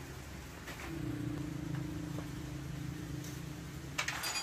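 A low, steady mechanical hum of a running motor swells up about a second in and fades out near the end, followed by a few sharp metallic clinks of hand tools against the motorcycle engine.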